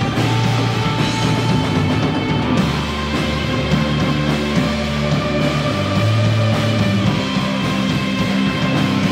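Live rock band playing heavy instrumental music: electric bass, drums and keyboard, with the bass notes shifting over a steady, dense band sound.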